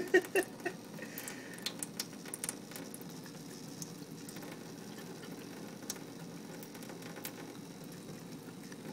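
Kitchen faucet running a thin, steady stream of water into a sink. A cat licks at the stream, giving a few small wet clicks over the first couple of seconds and now and then after.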